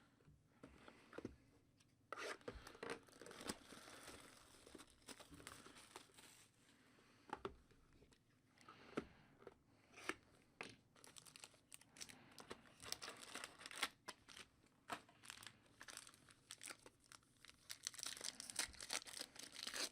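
Foil trading-card pack wrappers being torn open and crinkled by hand, heard as faint short crackles and clicks that start about two seconds in.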